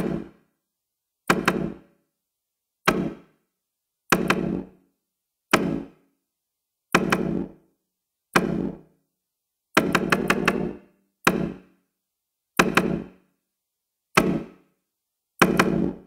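Electronic dubstep track's outro: the bass and beat drop out, leaving a lone knock-like percussive hit with a short decaying tail, repeated about every second and a half with silence between.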